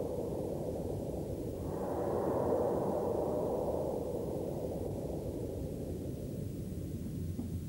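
A low rushing noise like a whoosh effect, swelling twice and slowly fading, with a few faint knocks starting near the end.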